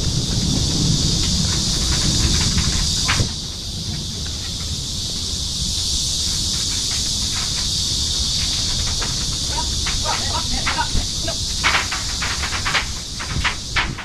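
A steady, high-pitched chorus of cicadas in summer trees. A low rumble lies under the first few seconds, and scattered sharp clicks and taps come in the second half.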